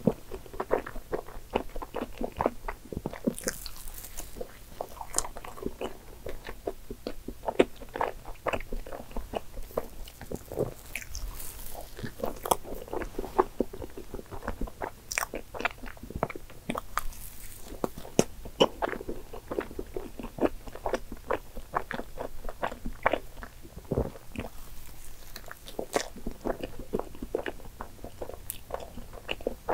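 Close-up chewing and mouth sounds of a person eating a soft, cream-filled soufflé sandwich: a steady stream of small wet clicks and smacks.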